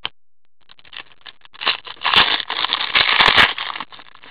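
Foil wrapper of a hockey card pack crinkling and tearing as it is ripped open by hand. It is a dense crackle that builds about a second in, is loudest in the middle and eases off near the end.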